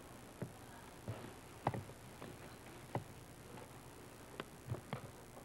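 Scattered short clicks and knocks, about eight of them and irregularly spaced, over a steady hiss.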